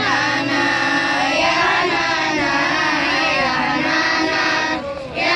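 Young voices singing a flowing melody, with long held and gliding notes that break briefly near the end.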